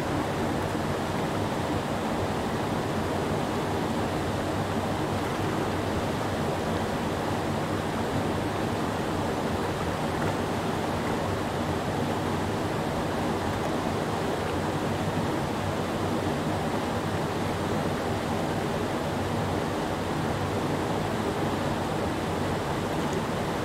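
Creek rapids: whitewater pouring over a low rock ledge, a steady, even rush of water.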